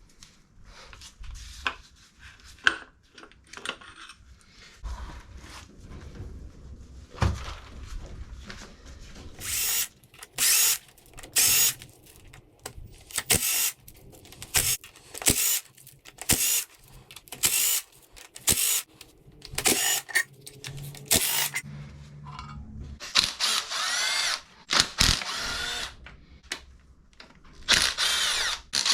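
Handheld power drill run in a string of short bursts about a second apart, then in two longer runs with the motor speed wavering. Before the bursts there are scattered clicks and knocks of metal parts being handled.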